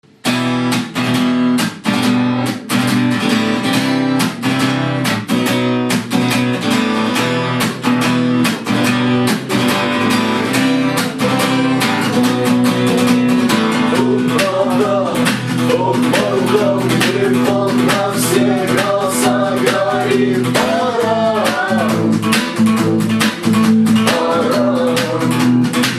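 Instrumental intro of a guitar-driven rock song: rhythmic strummed guitar over a steady bass line. A wavering melody line joins about halfway through.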